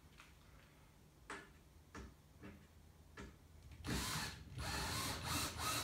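A few separate clicks and knocks, then, from about four seconds in, a cordless drill-driver running in pulsing spurts as it drives a screw into the rod bracket.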